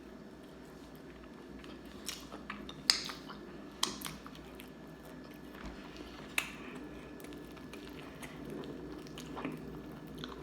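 Close-miked chewing and biting of a fried chicken and fries meal, with a few sharp crunchy clicks about two, three, four and six seconds in.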